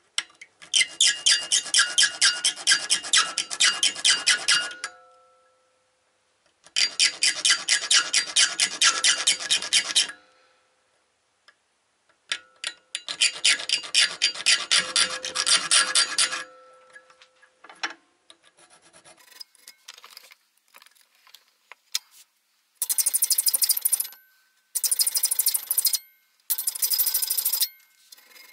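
Hand file rasping notches into an aluminium angle strip clamped in a bench vise. It goes in three long bouts of quick back-and-forth strokes, then a few scattered light strokes, then three shorter, sharper bouts near the end. The notches are gripping teeth cut into a homemade gauge-retaining bracket so that it holds better in the plastic.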